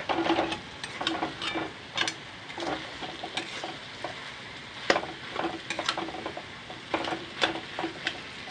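Metal spatula scraping and knocking against a metal kadai while mashed boiled potato and masala are stirred and fried, over a steady frying sizzle. The strokes come irregularly, with a few sharper knocks against the pan.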